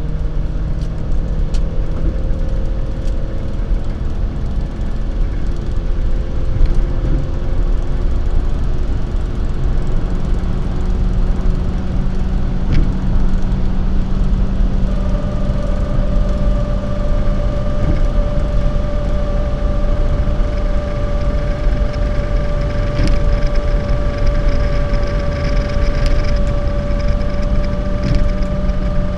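Cabin noise of a Toyota Premio at highway speed: steady low road and engine rumble with a droning tone over it, and from about halfway a steady higher-pitched whine that holds to the end. This is the abnormal noise the driver hears from near the front passenger side.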